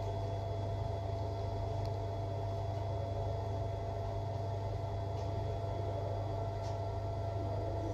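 A steady low electrical hum with a thin high tone over a hiss. There are no distinct events.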